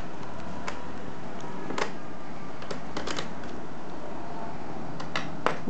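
Light clicks and taps of small screws and a screwdriver against a laptop's plastic underside, about eight scattered clicks over a steady hiss.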